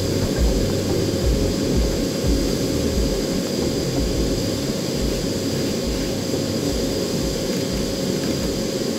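Gas-fired metal-melting furnace burner running with a steady low roar, heating a crucible of cast-iron pieces.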